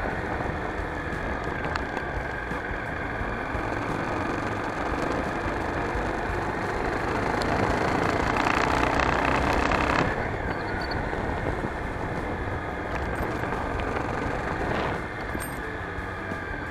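Motorbike engine running with wind and road noise, picked up by the handlebar-mounted camera's built-in microphone during a ride. The sound is steady, with a louder stretch about 8 to 10 seconds in.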